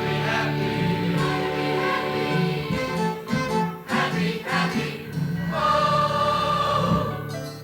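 A gospel choir singing with accompaniment. It holds a long chord about two-thirds of the way through, then drops away just before the end.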